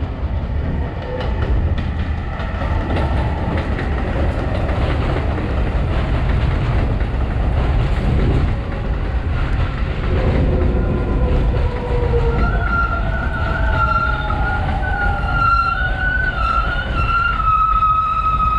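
R142/A subway train running on the elevated line with a heavy low rumble; its motor whine falls in pitch over the second half as it slows. From about two-thirds of the way in, a high wavering squeal rises above the rumble.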